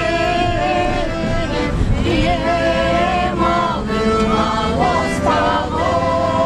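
Several voices singing a song together in chorus, with long held notes, over the steady road noise of the car they are riding in.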